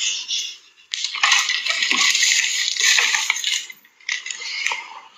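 Clinking and scraping of small hard objects handled close to the microphone: a dense run of it from about a second in, lasting some two and a half seconds, and a shorter burst near the end.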